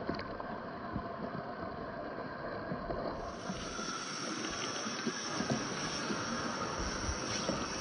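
Traxxas TRX4 1/10-scale RC crawler's electric motor and geared drivetrain running as it crawls over wet river rocks, with a faint steady whine, small clicks of tyres on stone, and a steady rushing hiss underneath. The sound changes abruptly about three seconds in.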